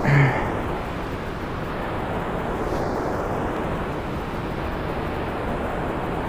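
Steady rush of water pouring through a dam's gates.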